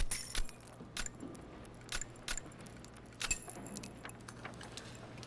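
Scattered, irregular clicks and short metallic rattles of press photographers' cameras and flashbulbs in a hushed hearing room, over a faint low hum.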